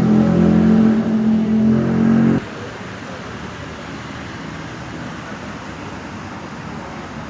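Benelli TRK 502X's 500 cc parallel-twin engine running loud at a steady speed, then cutting off abruptly about two and a half seconds in, leaving a steady background hum.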